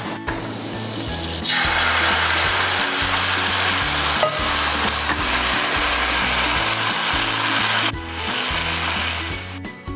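Thin crepe batter sizzling in a hot buttered frying pan; the sizzle starts suddenly about a second and a half in, breaks off briefly near the end and comes back more quietly.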